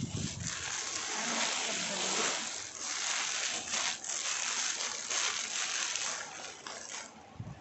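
Clear plastic packaging crinkling and rustling as it is handled and pulled open around new clothes, with a dense run of crackles that eases off near the end.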